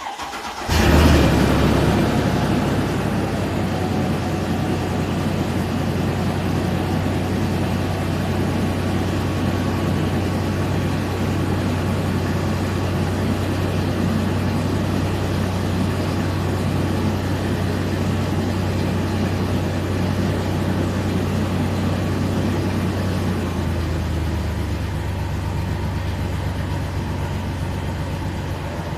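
Mercedes-Benz W163 M-Class engine starting and then idling steadily while misfiring on two cylinders. The engine catches about a second in, and the idle note shifts slightly near the end.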